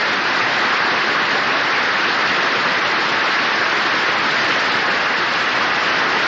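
Studio audience applauding steadily, a dense even clapping heard on an old radio broadcast recording, greeting a guest just introduced on air.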